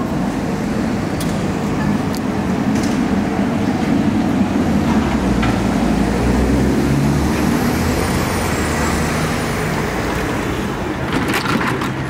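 Milan tram running along street rails and pulling in to a stop, a steady low hum and rumble over street traffic. A faint high squeal comes in about two thirds of the way through, and a short cluster of clicks near the end as it comes to a halt.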